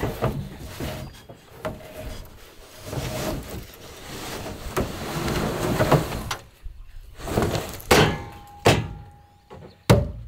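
A large, failed Coleman basement RV air-conditioner unit being dragged and slid across metal onto a pickup's tailgate: scraping and rumbling for about six seconds, then several sharp metal bangs and knocks near the end, one of them ringing briefly.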